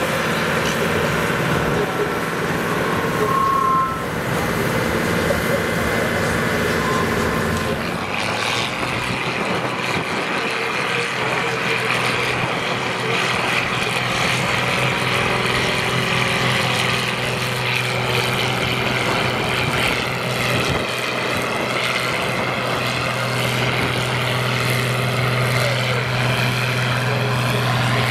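Farm tractor diesel engines running hard under full load, dragging a weight-transfer pulling sled down a dirt track. The engine sound changes at about eight seconds as the run switches from a green Deutz-Fahr to a red International tractor, which then holds a steady low drone.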